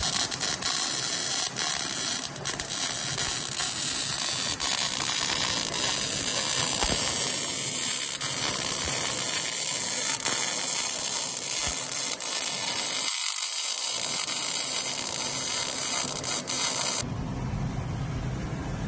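MIG welding arc with gas shielding: a steady crackling hiss as the wire burns in, stopping abruptly near the end when the torch trigger is released, leaving a low machine hum.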